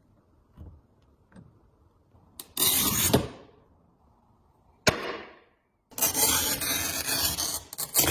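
Manual tile cutter's scoring wheel scraping across a tile in a short stroke, then a sharp crack of the tile snapping about five seconds in, then a longer scraping stroke of about three seconds.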